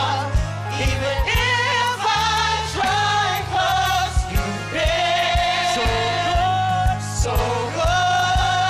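Gospel vocal group singing in harmony: a lead singer with several backing singers on microphones, over band accompaniment with a steady beat and bass. The voices hold long notes.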